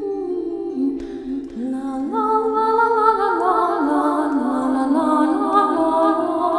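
Background music with a soft, lullaby-like wordless vocal melody; a second, higher melodic line joins about two seconds in.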